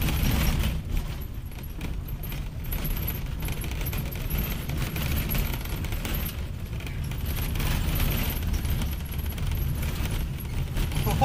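Renault 4L driving slowly over a rough dirt track, heard from inside the cabin: a steady low engine and road rumble, with the body and loose items rattling and clattering over the bumps.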